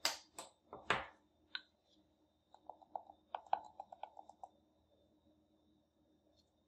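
Light handling sounds of a spice jar and a plastic measuring spoon: two sharper knocks in the first second as the jar is opened, then a quick run of small clicks around the middle as the spoon scoops cumin powder from the jar.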